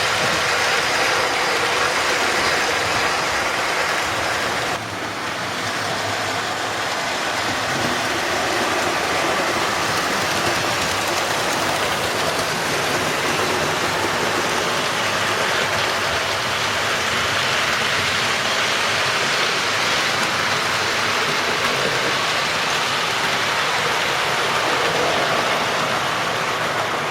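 Model railway trains running on the layout track: a steady whir and rumble of wheels and motors on the rails, with a brief drop about five seconds in.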